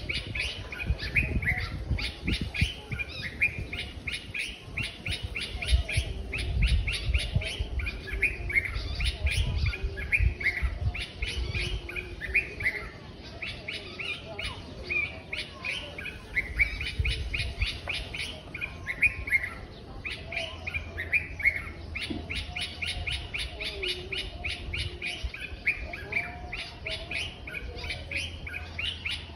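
A chorus of small birds chirping and chattering rapidly, with a high pulsing trill above it and an uneven low rumble underneath.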